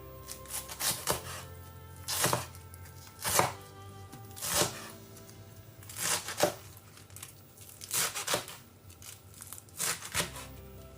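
A knife slicing through lettuce on a chopping board, each cut a short crunch, about one a second at an uneven pace, with soft background music underneath.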